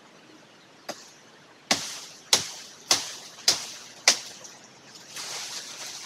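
Blade chopping into a tree branch: one light strike, then five sharp hacks a little over half a second apart. Leaves rustle near the end.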